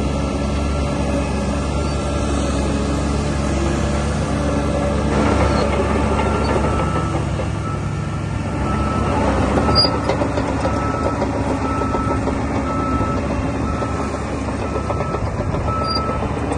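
Diesel engine of a DH17 C2 LGP bulldozer running steadily. From about five seconds in, a short beep repeats about once a second.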